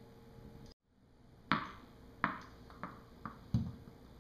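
A tennis ball bouncing on a tile floor: five sharp bounces coming quicker and quicker as it settles, the last one a duller thud.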